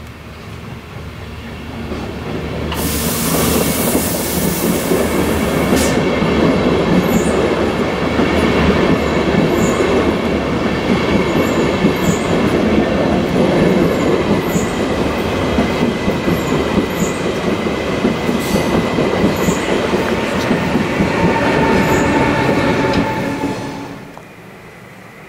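Electric locomotive and Railjet passenger coaches passing close by: a loud rush as the locomotive goes past, then a steady rumble of wheels on the rails with thin squealing tones and faint regular ticks. The sound drops away sharply near the end.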